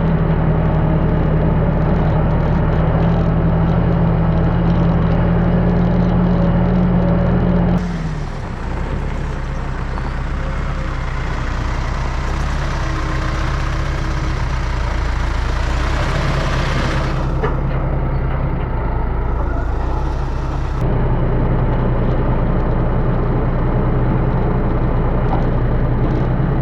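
A vehicle engine running steadily with a low hum. The sound changes abruptly about 8 seconds in and again about 21 seconds in.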